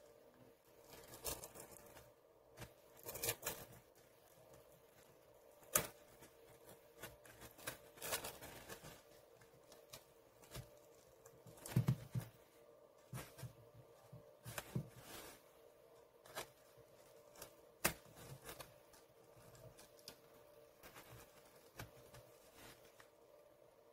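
Hands handling and working at a power bank's case and blue plastic end cap to pry it apart: irregular faint clicks, taps and scrapes, with a few duller knocks about halfway through.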